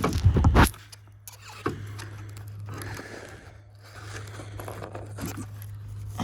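Loud plastic knocks and clicks in the first second, then lighter scraping and clicking, as the interior door handle release cable is worked free of the car door lock mechanism.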